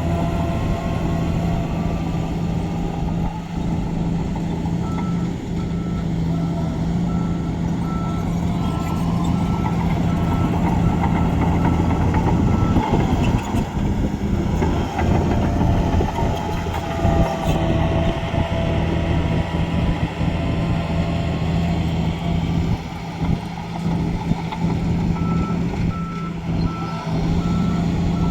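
Heavy diesel construction machinery running steadily, with a reversing alarm beeping in an even series for several seconds, stopping, then starting again near the end: a machine backing up.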